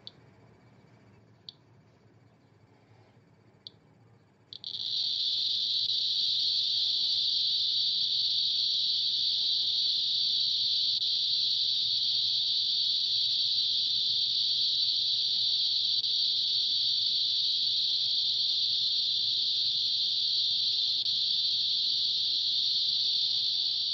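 Geiger counter's piezo buzzer clicking: a few single clicks, then about four and a half seconds in the clicks merge into a loud, continuous hiss as the SBT-11 GM tube counts tens of thousands of hits per minute from an americium source.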